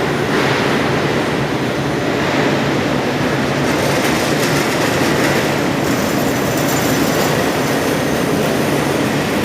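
Loud, steady industrial machinery noise: a constant rumble with a low hum under it and no distinct knocks or strokes.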